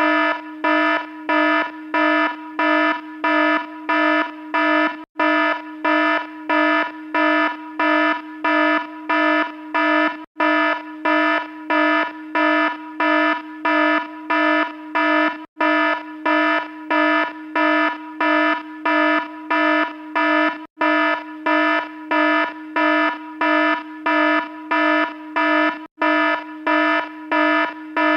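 Electronic alarm sounding continuously: a harsh, buzzy beep pulsing about twice a second. It drops out for an instant about every five seconds.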